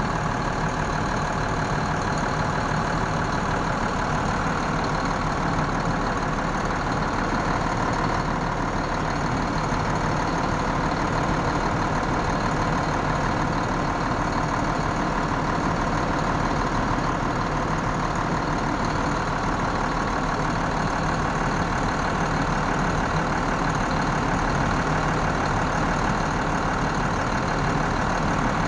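2003 Mack CX613 tractor's turbocharged diesel engine idling steadily, heard up close in the open engine bay.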